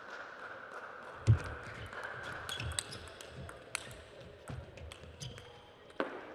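Table tennis rally: the celluloid ball clicking off bats and table in quick succession, with low thuds of players' feet on the court floor. The loudest is a sharp thump about a second in.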